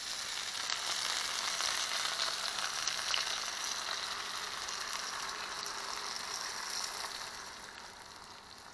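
Vegetables in oil sizzling in a hot frying pan as coconut milk is poured over them. The sizzle fades about seven and a half seconds in.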